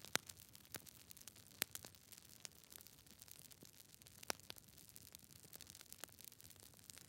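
Fire crackling: irregular sharp snaps and pops over a faint hiss, with three louder pops, just after the start, about a second and a half in and past four seconds in.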